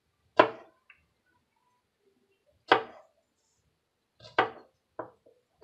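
Chef's knife chopping a strawberry into small pieces, the blade knocking down onto the counter work surface in single sharp chops. One comes near the start and one about midway, then three follow close together near the end.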